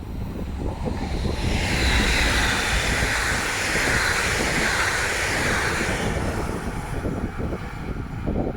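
Class 181 electric locomotive and its train of four Vossloh DE 18 diesel locomotives passing at speed: a rushing noise of wheels on rail over a low rumble. It swells about a second in and begins to fade after about six seconds.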